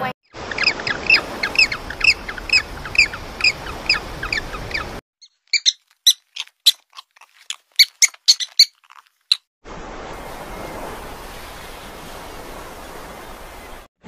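Quick high chirps repeated about three or four times a second, then several seconds of scattered sharp, high squeaks from a rat, then a steady hiss.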